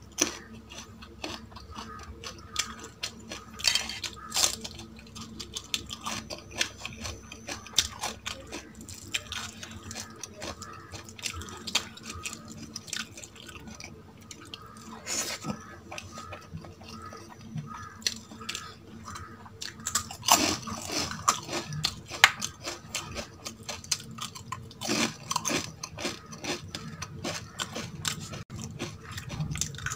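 A person eating close to the microphone: wet chewing with frequent crisp crunching bites, the crunches coming in denser clusters about two-thirds of the way through and again near the end.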